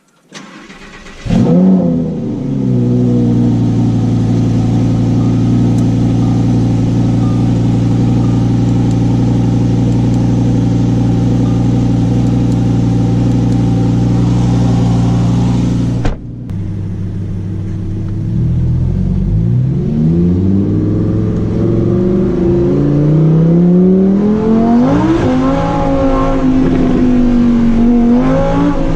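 Lamborghini Huracán Performante's V10 engine starting about a second in with a quick rev flare, then idling steadily. After a brief break about halfway through, it is revved repeatedly, the pitch rising and falling with each blip.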